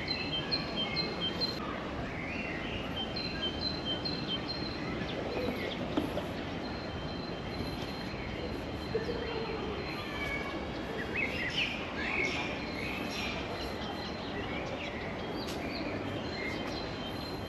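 Small birds chirping and twittering, with a quick run of short repeated high notes near the start, over a steady background hum of outdoor noise.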